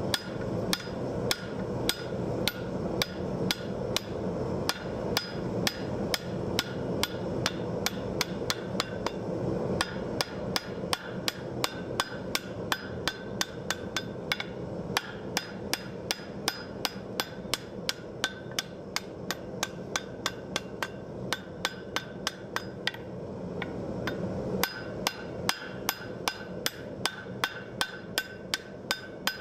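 Blacksmith's hand hammer striking a red-hot hook over the horn of an anvil: a steady run of ringing blows, about two to three a second, with a couple of brief pauses. A steady low background hum runs under the blows.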